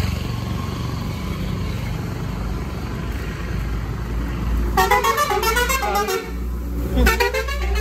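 Street traffic: a steady hum of passing vehicles, with horns honking about five seconds in and again near the end.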